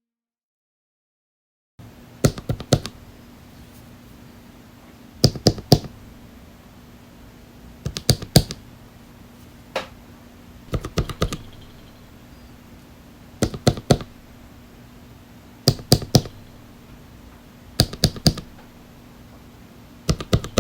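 Keystrokes on Drop x Invyr Holy Panda tactile mechanical keyboard switches: short groups of one to four clicky presses every two to three seconds. They start after about two seconds of silence, over a faint steady hum.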